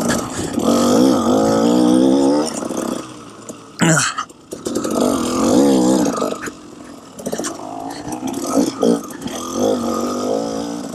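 KTM 300 XC-W two-stroke dirt bike engine revving hard and backing off in bursts as it is raced along a trail, its pitch rising and falling with the throttle. A brief loud knock about four seconds in.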